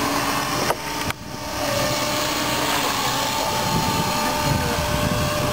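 Align T-Rex 250 electric RC helicopter's motor and rotor whining steadily in flight, its pitch drifting a little as the throttle changes, over a loud, steady rush of noise. The loudness drops sharply twice about a second in.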